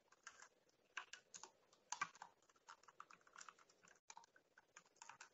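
Faint typing on a computer keyboard: irregular runs of quick keystroke clicks, a few a second.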